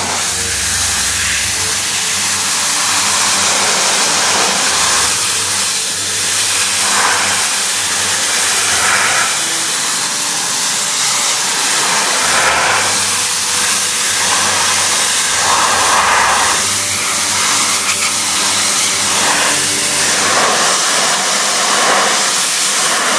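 Pressure washer's high-pressure water jet hissing steadily against clay barrel roof tiles, blasting off lichen and grime, with the washer's motor running underneath.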